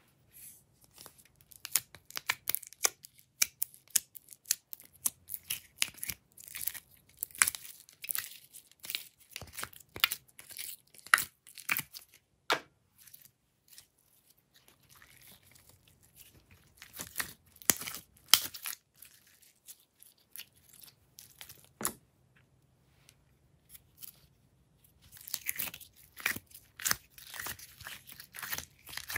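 Glossy slime handled by hand, peeled out of plastic ice-cube trays and stretched: a run of sticky pops and crackles. The pops come thick and fast at first, thin out through the middle and bunch up again near the end.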